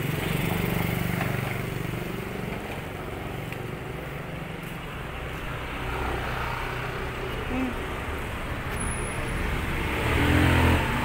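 An engine running steadily in the background, a low rumble that gets louder about ten seconds in.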